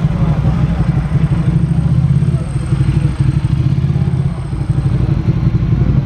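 Vintage Ducati Desmo race bike's engine running at a fast idle with a rapid, even beat. The revs dip briefly about three seconds in and again a little over four seconds in.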